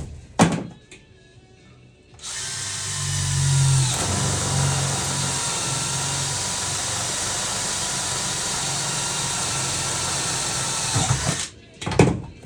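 Electric drill running steadily for about nine seconds, boring through a metal patch plate and floor pan for rivets. A few sharp clicks follow near the end.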